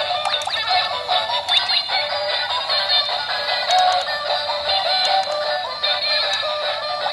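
Background pop music with processed, auto-tuned-sounding singing.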